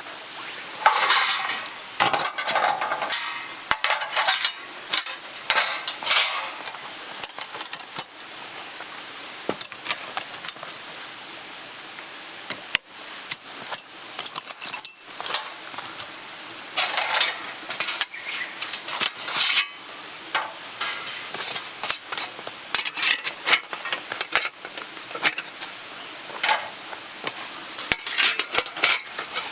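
Metal camping gear being handled: irregular clinks, knocks and scrapes, with several short bursts of rustling.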